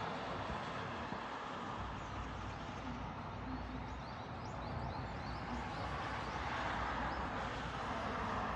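Steady background rumble and hiss with a short run of faint, high, rising chirps, like small birds twittering, from about two to five seconds in.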